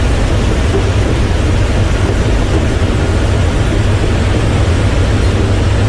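Boeing C-17 Globemaster's four turbofan engines giving a steady, loud jet rumble with a hiss over it.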